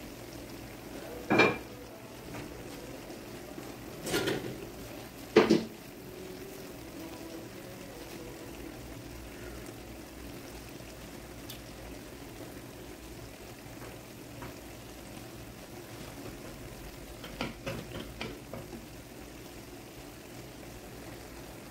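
Vegetables and fish in broth simmering in a wok on a gas burner: a faint steady bubbling. A few short sharp knocks come in the first six seconds, and a cluster of small clicks comes near the end.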